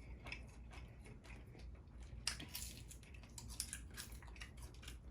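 Faint chewing and mouth smacking of a person eating steak, with scattered small wet clicks and one sharper click about two seconds in.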